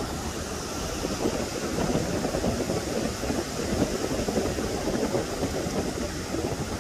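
Surf breaking and washing up the shore, with wind buffeting the microphone as an uneven low rumble.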